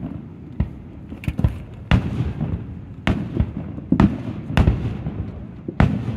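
Aerial firework shells bursting overhead: a dozen or so sharp bangs and booms at irregular spacing, each trailing off in a short low rumble.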